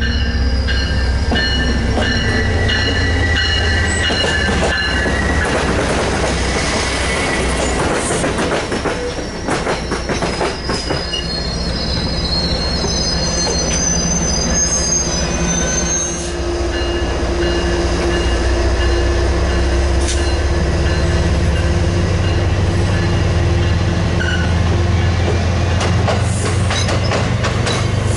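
MBTA commuter rail train led by an HSP46 diesel locomotive, running into a station. A high, thin wheel squeal comes and goes over the locomotive's diesel rumble through the first half. From about halfway on, the engine settles into a steady, heavier low rumble.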